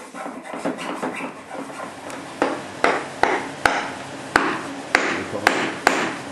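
Hammer blows on metal. A patter of lighter knocks comes first, then about eight sharp, ringing strikes at a little under two a second.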